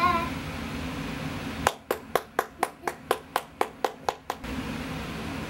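One person's hands clapping: about a dozen sharp, even claps, four or five a second, starting a little under two seconds in and stopping a couple of seconds later.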